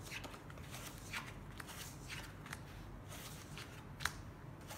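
Playing cards being dealt from a clear acrylic baccarat shoe and turned face up on a felt table: a string of soft slides and flicks of card stock, with one sharper snap about four seconds in.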